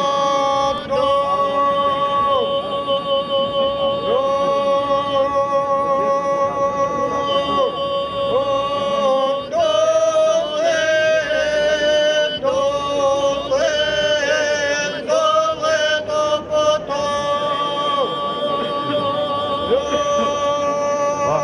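A girl and a young man singing together in the Serbian 'iz vika' style: unaccompanied two-part folk singing in loud, long-held notes, broken by short breaths between phrases.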